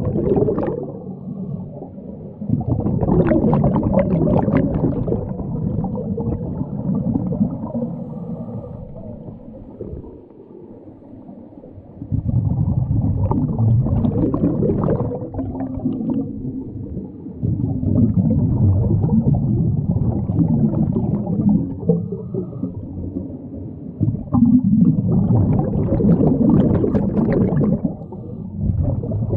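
Scuba divers' exhaled breath through their regulators, heard underwater as bursts of bubbling and gurgling a few seconds long, with quieter gaps between them as they breathe in.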